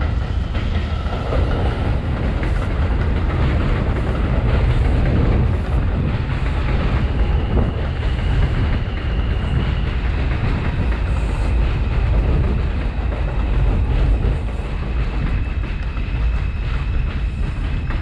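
New York City Subway R142/R142A train running through the station with a steady rumble of wheels on rail and some clickety-clack. A thin, steady high whine joins about seven seconds in.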